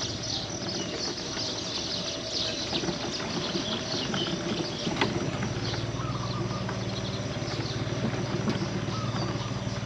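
An engine idling steadily, its low hum coming in about six seconds in, shortly after a single sharp knock.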